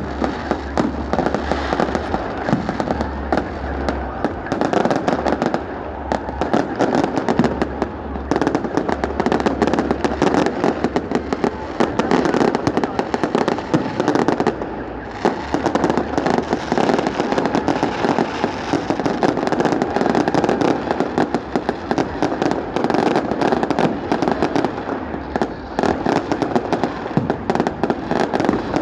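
Fireworks going off in quick succession: a dense stream of overlapping bangs and crackles.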